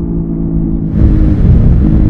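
Suzuki SV650's V-twin engine off the throttle, running steady and subdued. About halfway through the throttle opens again and the engine note comes back louder, its pitch dipping briefly before climbing.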